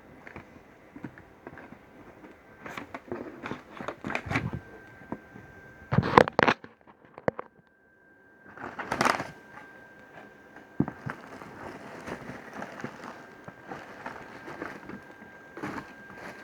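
Packaging being handled and unwrapped, with irregular rustling, crinkling and knocks, the loudest handling about six seconds in. A faint steady high whine runs underneath.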